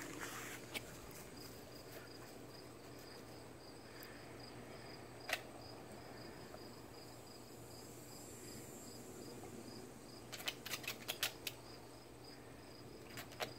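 Faint insect chirping, a high steady pulse about four times a second. A single sharp click about five seconds in and a quick run of light clicks about ten seconds in.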